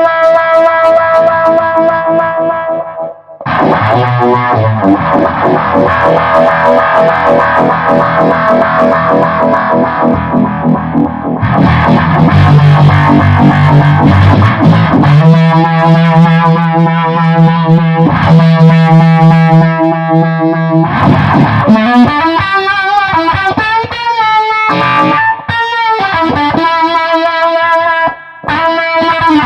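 Electric guitar played through a Behringer Bass Brassmaster fuzz pedal and a vibe pedal: distorted, sustained notes and chords. There is a brief gap a few seconds in, a long held low note in the middle, and bent notes near the end.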